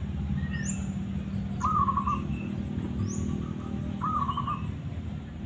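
Zebra dove (perkutut) cooing: two matching phrases of quick bubbling coos about two and a half seconds apart. Higher chirps from small birds come in between.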